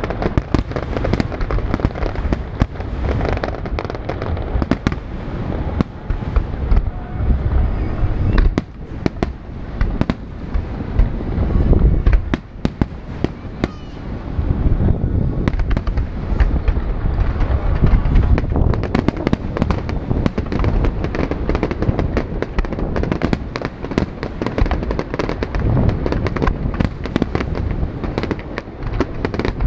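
Aerial fireworks going off in a rapid, unbroken barrage: many sharp bangs a second over heavy low booms.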